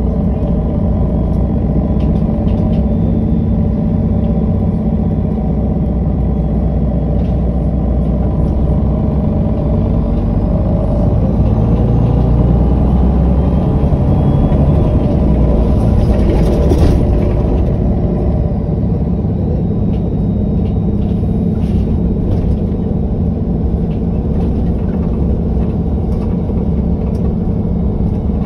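MAN NG313 articulated bus's six-cylinder diesel engine running steadily, growing a little louder for a few seconds before easing off about two-thirds of the way through.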